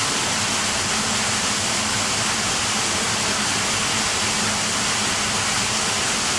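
Steady, even rushing noise with a faint low hum, unchanging in level.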